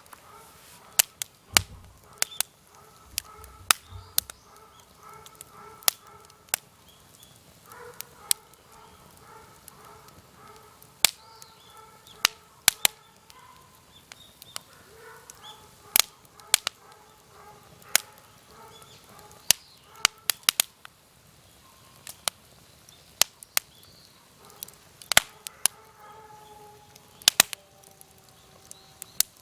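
Firewood cracking with sharp, irregular snaps, roughly one a second and some in quick pairs.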